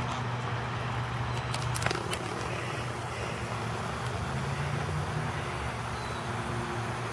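Steady outdoor background rumble and hiss with a low, even hum, like distant traffic, and a few faint clicks about two seconds in.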